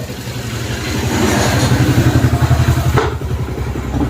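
An engine running with an even low throb, growing louder about a second in and easing off after about three seconds, with a sharp knock near the end.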